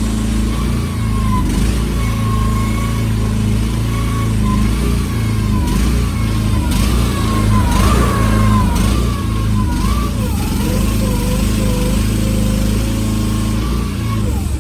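Vicsec VC13C mini excavator's engine running steadily while the hydraulic rotating grapple is worked. A wavering whine rises and falls over it as the levers are moved, and it all stops abruptly at the end.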